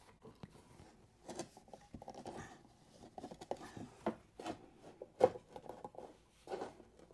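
Irregular small clicks, taps and rustling from handling battery wires and cables, with a sharper click about five seconds in.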